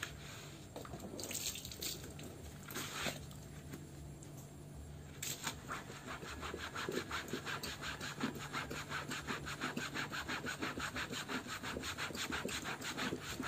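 Hand-scrubbing a soapy football jersey with a nylon scrubbing net in hot soapy water: a few separate rubs at first, then from about five seconds in fast, even scrubbing strokes, about six a second.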